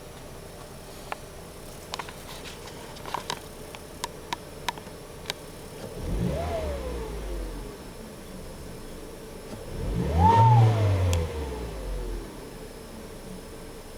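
Audi A4 1.8T's turbocharged four-cylinder engine idling, then revved twice, about six and ten seconds in, the second rev higher and louder. With each rev a whistle rises and slowly falls away. The owner takes the whistle as the sign of a bad K03 turbocharger.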